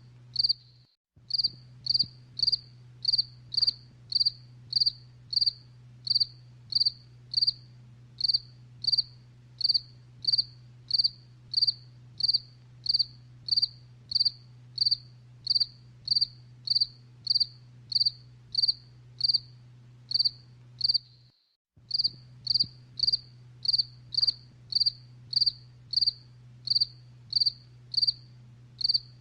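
A cricket chirping steadily, short high-pitched chirps at about two a second. A faint low hum runs underneath, and the whole sound cuts out briefly twice: about a second in and again about two-thirds of the way through.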